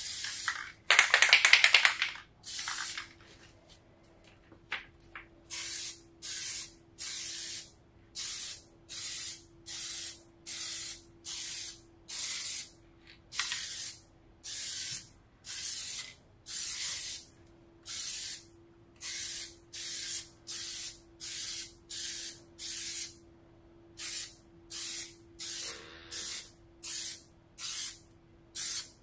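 Plasti Dip aerosol spray can hissing in a long run of short bursts, about one a second, as rubber coating is sprayed onto a wheel rim in quick passes. A louder, rougher noise comes about a second in, and a faint steady hum sits underneath.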